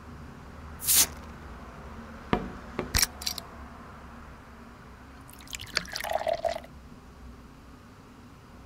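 A short swish about a second in, then a few sharp knocks as bottles and a steel tumbler are set down on a tiled floor, then about a second of water being poured into a cup.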